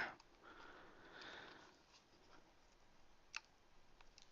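Near silence: faint rustling in the first second or so, then a single small click a little over three seconds in.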